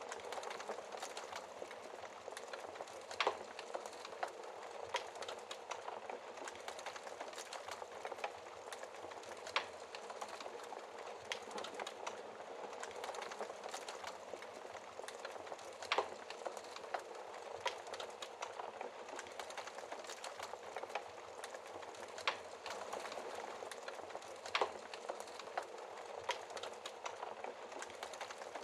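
Fire in a fireplace crackling: a steady soft hiss full of small rapid crackles, with a few louder sharp pops scattered through, about five in all.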